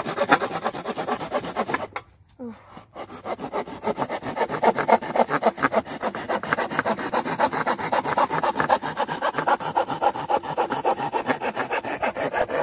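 Silky Pocket Boy folding pull saw cutting through a thick piece of wood in rapid back-and-forth strokes, with a brief pause about two seconds in.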